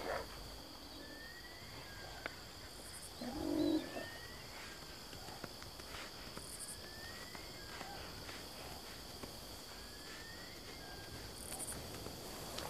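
Savanna ambience of a steady insect drone. Over it, a bird gives a short rising whistle about every two seconds. A brief, lower-pitched animal call comes about three and a half seconds in.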